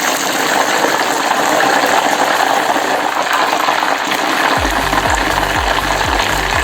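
Breaded chicken nuggets frying in hot oil, a steady sizzle. Background music with a deep bass beat comes in about four and a half seconds in.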